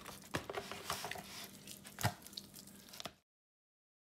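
A hand rubbing Worcestershire sauce into a raw brisket in an aluminium pan: irregular wet squishing and slapping of the meat, with two louder slaps. It stops abruptly about three seconds in.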